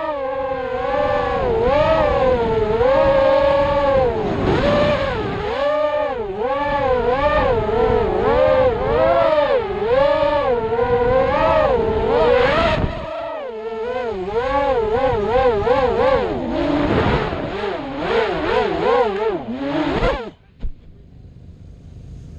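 Thrust-UAV Riot 250R racing quadcopter's motors and propellers whining, the pitch rising and falling quickly as the throttle works. The whine stops suddenly about twenty seconds in.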